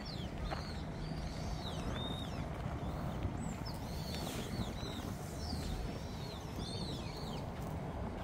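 Small birds chirping: a quick run of short arching chirps, repeated every half second or so, over a steady low background rumble.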